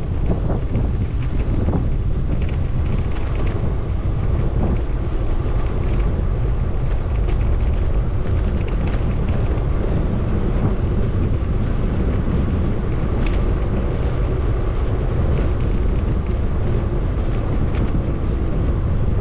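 Wind buffeting the microphone of a moving bicycle, a steady low rumble that does not let up.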